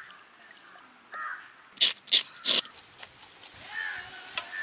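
Three loud, harsh bird calls in quick succession, about a third of a second apart, roughly two seconds in, with a few faint high chirps around them.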